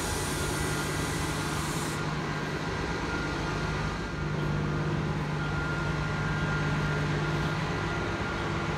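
Steady low hum of an idling city bus engine close by, with a high hiss during the first two seconds.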